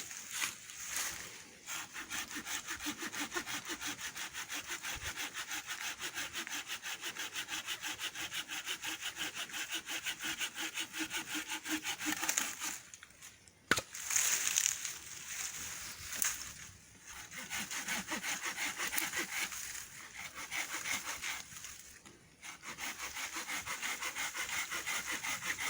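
A hand saw cutting through wood in quick, even back-and-forth strokes, with a few short pauses.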